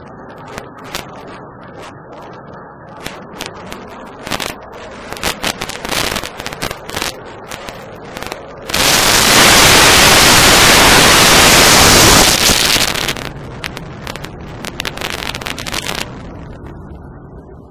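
Military jet flying past overhead: a rushing roar with crackling that swells to a very loud, even roar about nine seconds in, holds for about four seconds, then fades.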